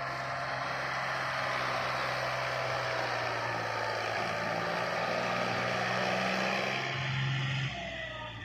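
John Deere 5310 tractor's diesel engine running under load as it pulls a trailer piled high with sugarcane. The engine note rises about halfway through and eases off near the end.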